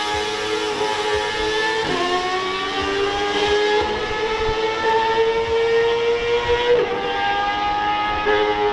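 Ferrari Challenge race car engine running at high revs. Its pitch climbs slowly and drops briefly three times, about two seconds in and twice near the end, as it shifts gear.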